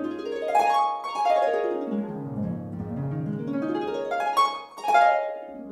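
Sampled concert harp (CineHarps library) played as a glissando by sweeping a hand along the white keys of a MIDI keyboard: a fast run of plucked notes that peaks about half a second in, sweeps down, climbs again to a second peak around four and a half seconds, then falls away and fades.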